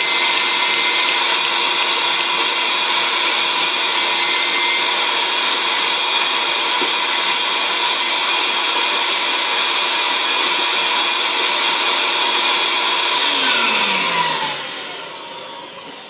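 Wet and dry vacuum cleaner motor running steadily with a high whine while drawing plaster dust through a water-filled filtration bucket. Near the end it is switched off and its whine falls as the motor spins down.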